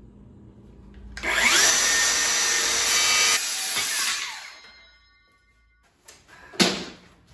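Circular saw spinning up and cutting through a wooden board for about two seconds, then released and winding down with a falling whine. A single sharp knock follows near the end.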